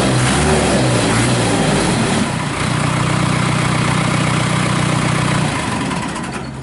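Case 580 Super E backhoe's Cummins 4B four-cylinder diesel engine running, its pitch rising and falling at first, then holding steady for a few seconds before easing off near the end.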